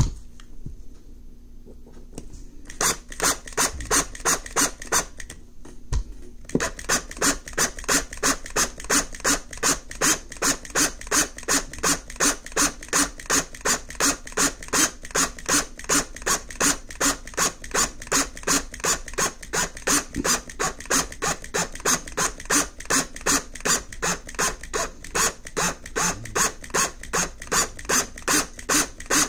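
Drill bit boring into the post of a diecast Hot Wheels base, drilling out the rivet. It makes an even scraping tick about three times a second that starts a few seconds in, stops briefly, then runs on steadily.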